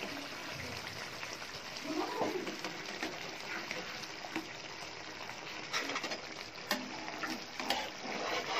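Spiced gravy simmering and bubbling with a steady hiss in a frying pan, while a steel spatula gently turns gram-flour dumplings in it. A few light spatula clicks come in the second half.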